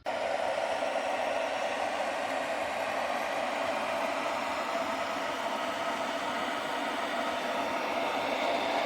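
Steady rushing noise from the Keebar gooseneck electric kettle working on water, starting suddenly and holding level.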